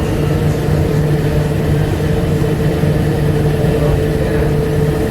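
Cabin noise of a 1999 Bombardier APM100 rubber-tyred people-mover car: a steady rumble with two held humming tones that do not change pitch.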